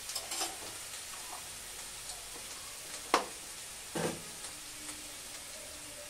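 Kohlrabi and potato pieces sizzling as they fry in oil in a steel wok on a gas burner. Two sharp clinks cut through the steady hiss, the louder one about three seconds in and another about a second later.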